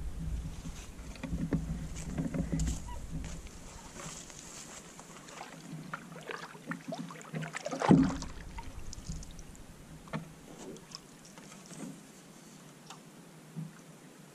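A canoe being paddled: paddle strokes and drips in the water with scattered light knocks, and one louder thump about eight seconds in.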